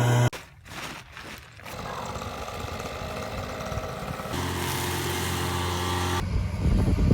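Engine running steadily, with the sound changing abruptly twice as short clips cut from one to the next, ending in a low rumble.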